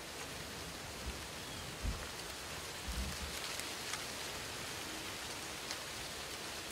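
Steady outdoor hiss with a few faint ticks and soft low thumps about one, two and three seconds in.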